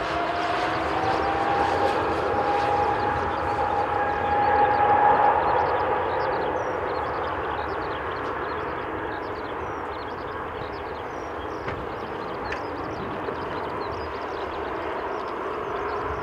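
Airbus A350-900 taxiing, its Rolls-Royce Trent XWB turbofans running at low thrust: a steady roar with a whine that rises a little in pitch over the first two seconds. It is loudest about five seconds in, then slowly fades.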